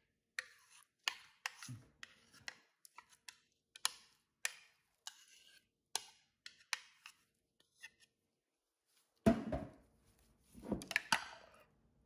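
Metal spoon scraping and tapping pumpkin purée out of a hand-blender jug, a run of sharp clicks and short scrapes, with two louder scraping knocks near the end as the jug is tipped over a stainless steel bowl.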